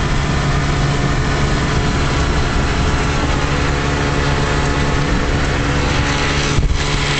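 1956 Johnson Javelin 30 hp two-cylinder two-stroke outboard running steadily at wide-open throttle, around 4,500 rpm.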